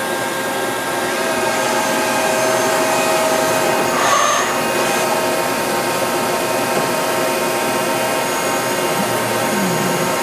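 Milltronics RH-25 rigid-head CNC mill running under power: a steady machine hum and whine with several constant tones, briefly louder about four seconds in.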